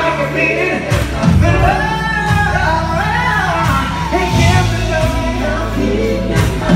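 Gospel choir singing with a live band, voices gliding over a steady low bass line and a beat.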